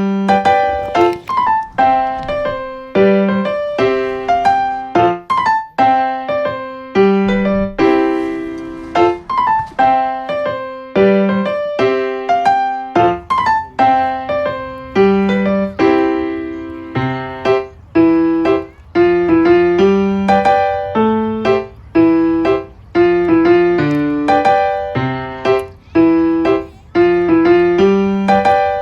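Background music: a steady piano tune of short struck notes, with a soft low accompaniment joining about halfway through.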